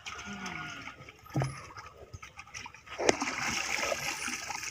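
Water splashing in a plastic bucket as a wet chicken is handled in it and lifted out, with a sharp knock about three seconds in and water sloshing and running off after it.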